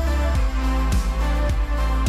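Background music with a steady beat about twice a second over a sustained bass.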